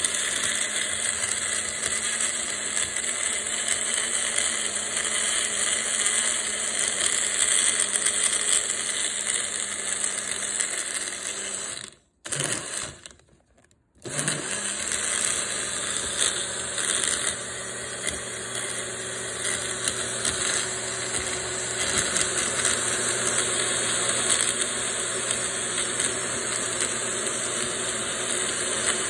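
Magic Bullet blender motor running steadily, blending a liquid smoothie of cream, almond milk and hemp seeds. The motor cuts off for about two seconds partway through, then starts again and runs on.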